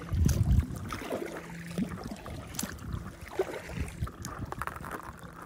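Paddle of a stand-up paddleboard stroking through lake water: splashes, gurgles and drips from the blade, with a short low rumble at the start.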